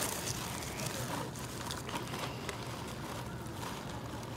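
White paper food bag rustling and crinkling as it is handled, giving a few short crackles over a steady low background hum.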